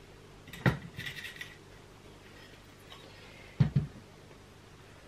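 Clay brick slip handled against the wall while being measured for a cut: a sharp knock under a second in, a short scrape, and two quick knocks near the end.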